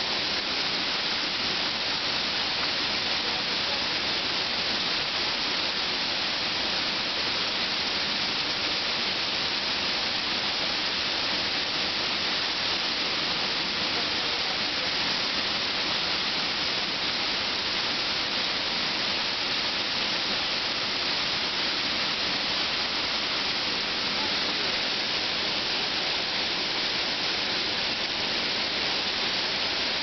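Waterfall: several cascades pouring down a rock face into a pool, a steady, even rush of water.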